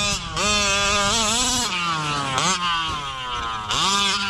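Big-bore two-stroke gasoline engine of a 1/5-scale RC truck revving hard. The pitch rises and falls several times as the throttle is worked.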